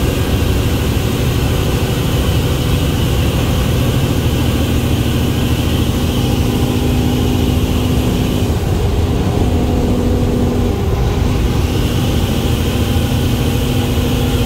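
Semi-truck's diesel engine and tyres heard from inside the cab while driving: a steady low drone with a constant hum that drops out briefly a couple of times.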